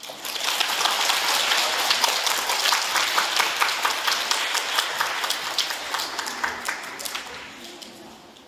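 Audience applauding at the end of a piece of music. The clapping starts all at once and dies away over about eight seconds.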